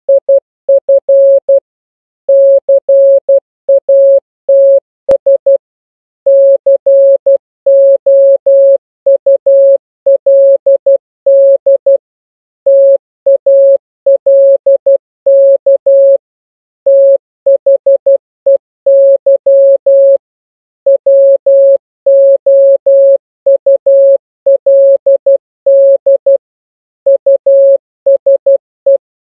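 Morse code (CW) sent as a single steady mid-pitched tone, keyed on and off in dots and dashes, with short pauses between letters and words.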